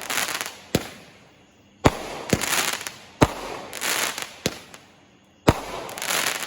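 Consumer fireworks going off: a sharp bang roughly every second, each trailed by a crackling hiss that dies away.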